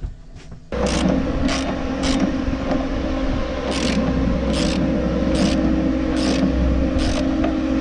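Hand socket ratchet tightening the bolt of a new hull anode, clicking in short bursts about every two-thirds of a second, over a steady low hum.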